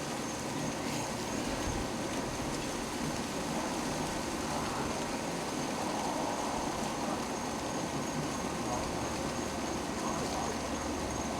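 Steady wind rushing and buffeting on the microphone, with a faint high steady tone under it.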